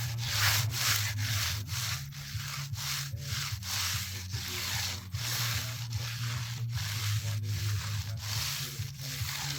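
A hand tool scraping back and forth over fresh, still-soft concrete to shape a rebate, in quick even strokes about two and a half a second. A steady low engine hum runs underneath.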